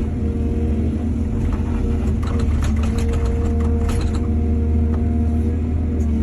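Heavy diesel engine of an excavator running steadily under load, with a burst of rapid rattling knocks for about three seconds in the middle.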